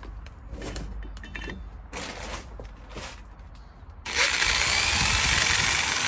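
Power drill starting abruptly about four seconds in and running steadily, boring out an unfinished bolt hole in a BMW E30 front strut housing to clear leftover material. Before it, a few light clicks of parts being handled.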